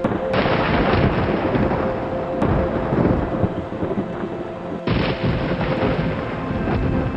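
Thunder rumbling low and long over steady rain, with a faint held tone underneath. The rumble swells suddenly about five seconds in.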